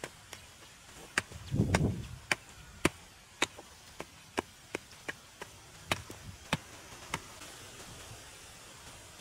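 A short-handled pick striking hard, dry soil in a run of sharp chops, about two a second, with a duller burst of loosened earth about a second and a half in. The strikes stop a little after seven seconds.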